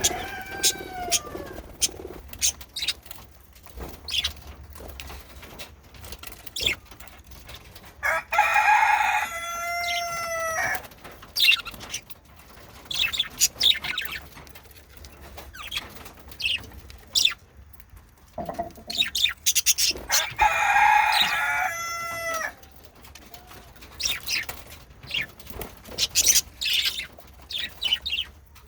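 Male budgerigars chattering: a busy run of short chirps and clicks, broken twice by a longer, drawn-out call, about nine and twenty-one seconds in.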